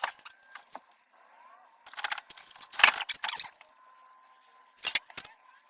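Short bursts of metallic rattling and clinking, in three or four brief clusters, with a faint steady tone in the second half.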